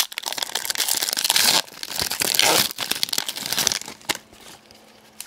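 Plastic wrapper of a Panini Contenders hockey card pack crinkling and tearing as it is opened, a dense crackle that dies down about four seconds in.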